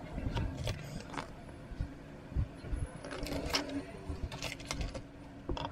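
Grey plastic interlocking model-tank puzzle pieces clicking and rattling as they are handled and pressed together, in irregular sharp clicks over a faint steady hum.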